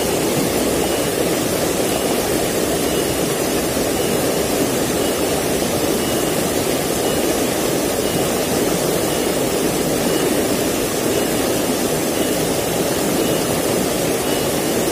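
Shallow mountain stream rushing and splashing over rocks in a steady, even rush. A faint high chirp repeats about once a second.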